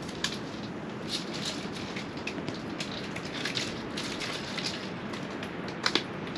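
Steady rushing wind with scattered light ticks and crackles, like blowing snow pattering on the fabric of an ice-fishing shelter, and two sharper clicks near the end.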